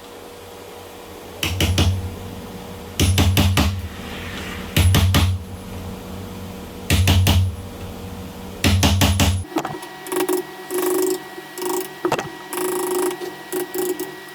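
Hammer driving a wood chisel into a door edge in five short bursts of several quick blows each, cutting a shallow recess for the deadbolt plate. From about nine and a half seconds in, the blows give way to lighter, irregular knocks.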